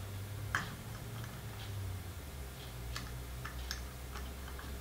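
Scattered light clicks and ticks of metal engine parts being handled as the bearing is worked into place beneath the raised cylinder of an 80cc two-stroke bicycle engine, the sharpest about half a second in, over a low steady hum.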